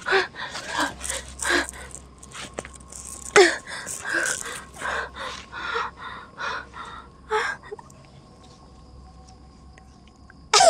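A woman panting and gasping in hard, irregular breaths, about two a second, some with a strained voice behind them: heavy breathing of distress. After about seven and a half seconds the breathing stops and only faint steady high tones remain.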